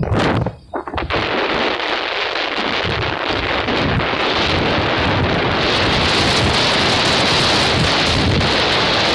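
Wind rushing over the microphone of a moving motorbike, a loud steady noise that sets in about a second in after a brief dip.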